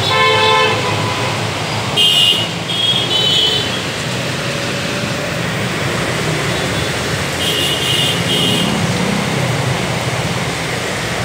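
Road traffic in heavy rain: a steady rush of rain and engines. Vehicle horns give short toots several times: near the start, a few around two to three seconds in, and a pair about seven to eight seconds in.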